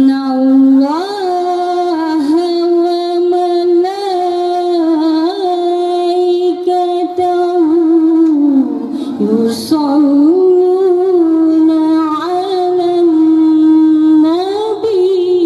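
A woman sings a sholawat, an Islamic devotional song, solo into a handheld microphone, in long held notes with ornamented turns and vibrato. The line drops and breaks about nine seconds in, then a new phrase begins.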